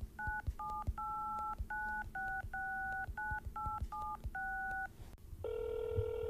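Touch-tone telephone keypad dialing: about ten short beeps, each two notes sounding together, at uneven lengths. About five and a half seconds in, a steady telephone line tone begins.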